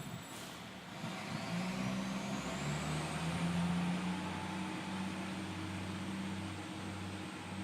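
Toastmaster 4433A 20-inch box fan: a click at the speed control about half a second in, then the motor's whine rising as it speeds up and levelling off into a steady high whine over a low hum. The fan's blades are badly out of balance.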